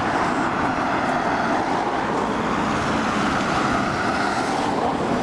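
Road traffic: cars and a van passing on the road, a steady hiss of tyre and engine noise that swells about three to four seconds in as a vehicle goes by.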